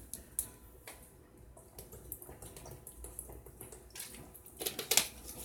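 Quiet room with a few scattered faint clicks and small taps, more of them close together near the end.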